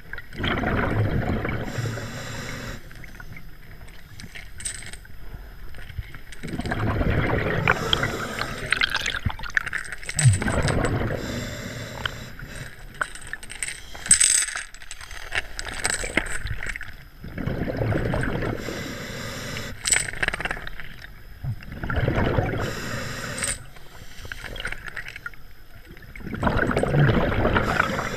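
Scuba diver breathing underwater through a regulator, heard from a camera worn on the diver: a rush of bubbling exhaled air every four or five seconds, with quieter stretches between breaths.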